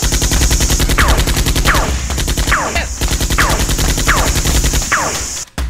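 Machine-gun fire sound effect: rapid automatic shots at about a dozen a second, with a falling whistle about every three-quarters of a second. It cuts off suddenly near the end.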